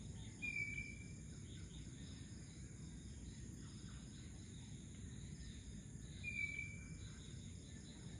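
Faint outdoor ambience: steady high insect trilling over a low rumble, with a bird giving two identical short whistled calls, each slightly falling, about half a second in and again some six seconds later.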